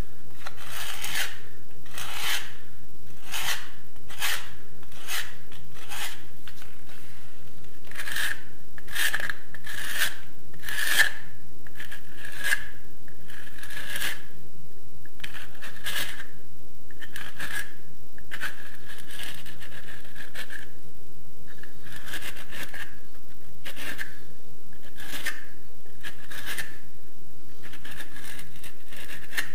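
A hand-held knife blade scraping and shaving plaster out of an inside wall corner, in short repeated strokes about two a second, many with a thin high squeal; excess plaster is being trimmed back to make the corner straight and vertical.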